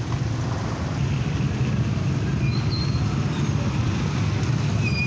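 Road traffic on a wet street: motorcycle and motorized tricycle engines running past, over a steady rush of tyre and road noise.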